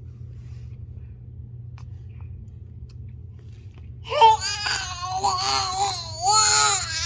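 A baby's high-pitched, wavering vocal noises, starting about four seconds in and carrying on in long drawn-out squeals, over a steady low hum.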